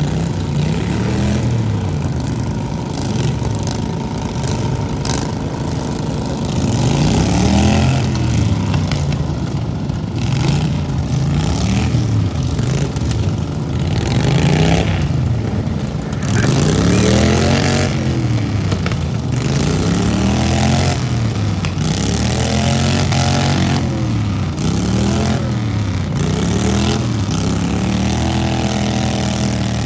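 Several riding lawn mower engines in a demolition derby revving up and down over and over, their pitch rising and falling every second or two.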